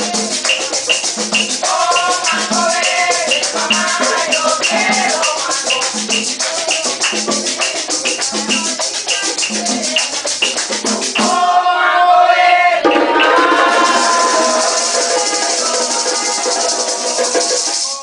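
Caribbean folk percussion: wooden hand drums beaten in a steady rhythm under a constant shaken maraca, with voices singing over it. About eleven seconds in, the shaker drops out for a couple of seconds and the drumming changes, then the shaker comes back.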